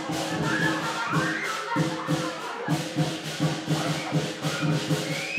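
Lion dance percussion: drum and clashing cymbals beating a quick, steady rhythm of about three strokes a second.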